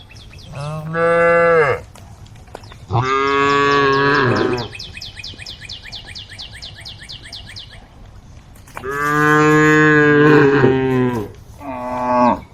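Cows mooing: four loud, drawn-out moos, the middle two the longest and the last one short. A rapid, evenly repeated high chirping runs under the second moo and through the gap after it.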